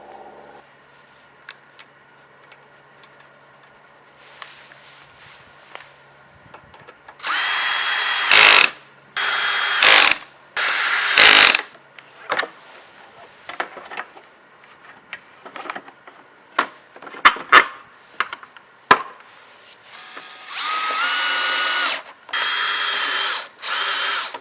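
Power drill running in six short bursts of about a second each, three in quick succession and then, after a pause with small clicks and knocks of handling, three more. The motor whines at a steady pitch within each burst and steps between speeds.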